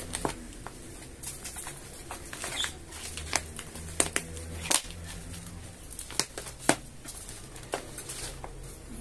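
Thin clear plastic bottle, used as a plant pot, crackling and crinkling in irregular sharp clicks as it is squeezed and worked off a root-bound plant.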